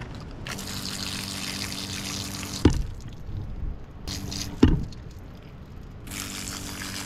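Fresh water spraying from a handheld shower head, rinsing the guts out of a halved crayfish. The spray comes in three spells with a low steady hum beneath it, and two sharp knocks fall where the spray stops.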